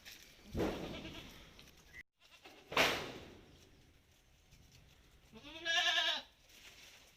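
A Malabari goat bleating once near the end, a call under a second long whose pitch rises and falls. Earlier come two short, sharp noisy bursts.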